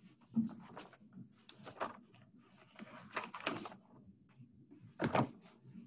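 Paper rustling as sheets of a document are handled and turned, in several short irregular bursts.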